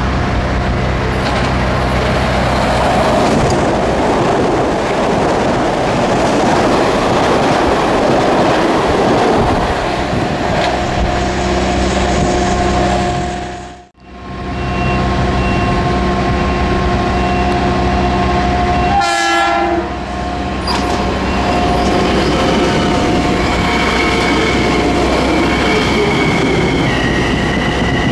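Metro-North commuter train on the Hudson Line running through the station: a steady rumble with sustained tones over it. The sound drops out abruptly for a moment about halfway through, and near the end high squealing tones come from the wheels.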